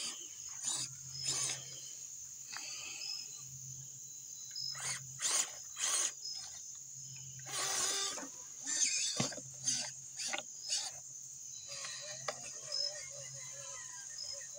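Crickets trilling steadily in an evening insect chorus, broken by short bursts of rustling and crunching in grass and leaves that are thickest about halfway through, with one sharp knock a little later.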